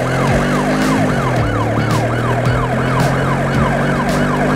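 Electronic police-style siren wailing in quick rising-and-falling sweeps, about two and a half a second, over a steady low hum.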